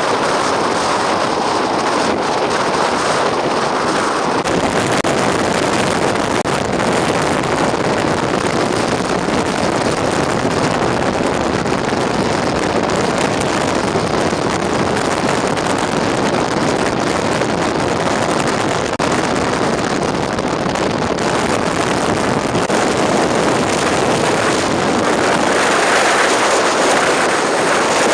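Storm-force wind blasting across the microphone, a loud, steady rush of noise that never lets up.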